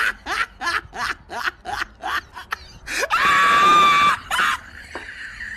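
A woman laughing hysterically in rapid bursts of "ha-ha-ha". About three seconds in, the laughter breaks into a loud, high-pitched, held shriek lasting about a second, the loudest moment. It ends with a shorter burst and gasping.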